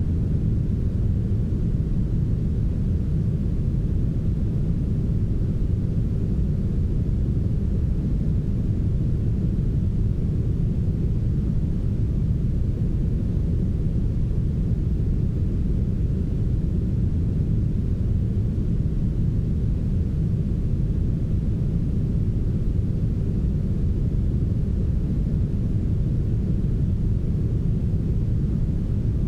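Steady, heavily smoothed brown noise: a constant deep rumbling hiss with the highs rolled off, unchanging throughout.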